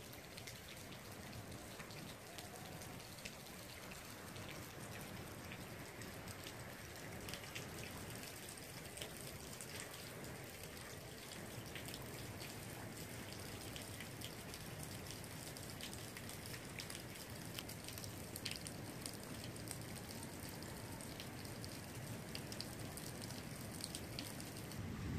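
Faint light rain falling, an even hiss with scattered drips ticking on wet pavement.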